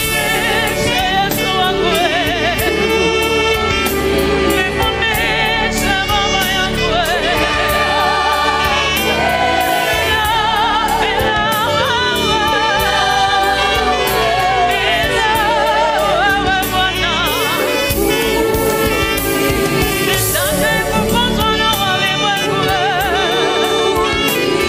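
Alto saxophone playing a slow gospel melody with wide vibrato, over a steady low backing accompaniment.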